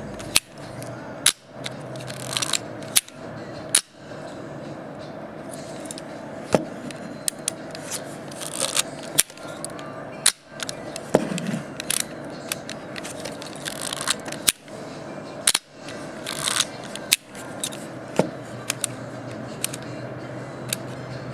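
Olympus Pen FT half-frame SLR camera worked repeatedly: the shutter fires with sharp clicks, and between them the film advance lever is wound with a short ratcheting scrape. The camera is being cycled as a check after repair.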